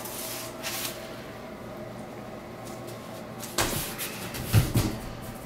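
Cardboard shipping box and foam packing sheet being handled: a brief rustle early, then a louder stretch of scraping and rustling with a couple of soft thuds near the end.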